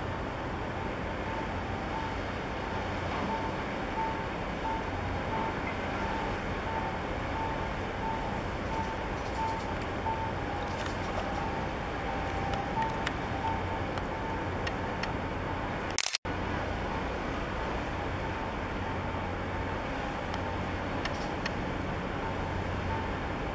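Steady low rumble of harbour engine and traffic noise, with a high electronic beep repeating about twice a second through the first half. The audio cuts out for an instant about two-thirds of the way in.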